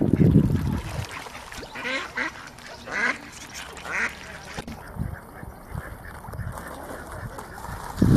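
Ducks quacking: three separate quacks about a second apart, following a loud, low, muffled rumble in the first second.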